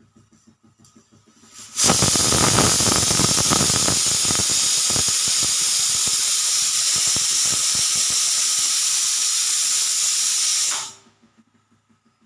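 Pressure cooker whistle going off: steam jets out of the vent with a loud, steady hiss and a low rattle, starting suddenly about two seconds in, lasting about nine seconds, then dying away quickly.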